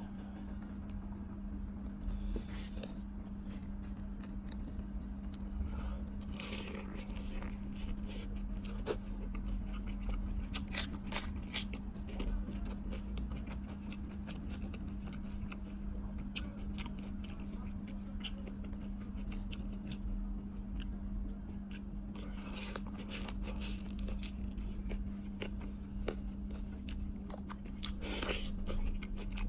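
Crunching, cracking and scraping as seafood is broken apart and eaten, in many short sharp crackles, over a steady low hum.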